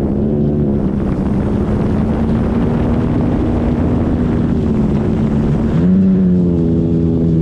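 Electric motor and propeller of an E-flite Extra 300 RC aerobatic plane droning in flight, its pitch settling lower at the start as the throttle comes back, then holding steady, and rising a little about six seconds in. Strong wind buffets the microphone, easing as the pitch rises.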